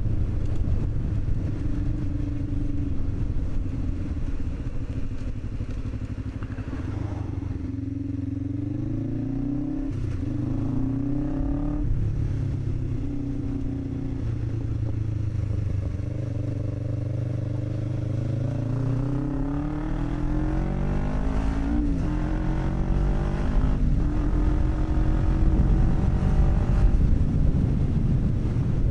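Commuter motorcycle engine pulling along on the road: its note climbs several times and drops back at each gear change, about eight, ten and twelve seconds in and again around twenty and twenty-two seconds, with steady running between.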